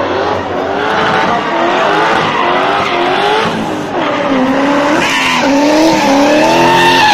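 A rally car sliding sideways through a bend. Its engine revs climb and fall in quick repeated surges, then rise more steadily near the end, with skidding tyres squealing.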